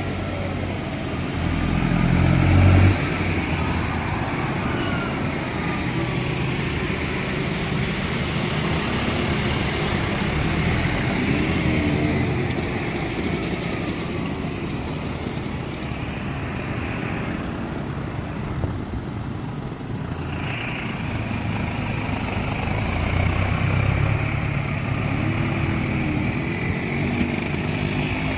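Farm tractor engines running as tractors drive past one after another. The loudest pass comes about two to three seconds in and cuts off sharply, and a second swell comes near the end.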